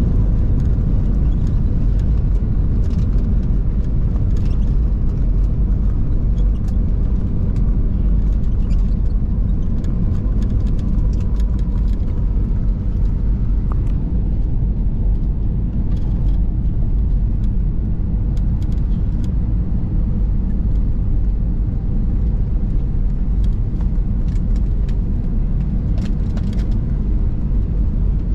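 Steady low rumble of an Airbus A320 heard from inside the rear cabin, with small rattling clicks scattered through it.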